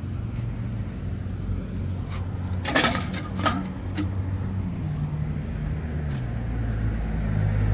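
Steady city traffic rumble, with a few sharp clicks and scrapes about three seconds in as an aluminium beer can is picked up off the asphalt. A vehicle grows louder toward the end.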